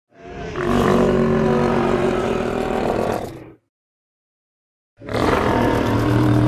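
Designed Maiasaura dinosaur sound effect: a low-pitched drawn-out call of about three seconds, a second and a half of silence, then a second call starting.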